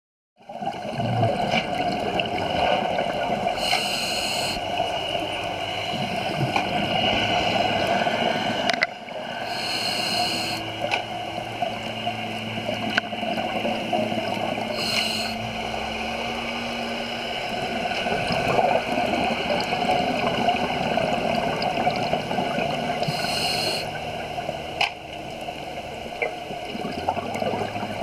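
Steady underwater noise picked up by a camera in its waterproof housing, with four short hisses from a scuba diver's regulator spread through it and a few faint clicks.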